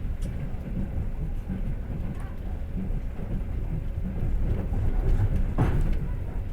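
Passenger train carriage running along the track: a steady low rumble of wheels and running gear on the rails, with a brief louder rattle about five and a half seconds in.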